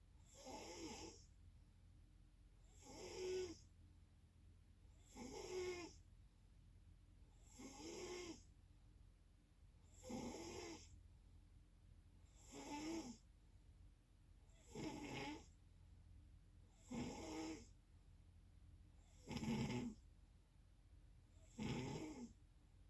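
Steady snoring: ten snores at an even pace, one roughly every two seconds, each about a second long, with quiet breathing gaps between them.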